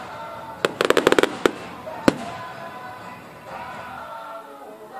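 Aerial fireworks going off: a sharp bang, then a quick string of crackling pops about a second in, and two more single bangs.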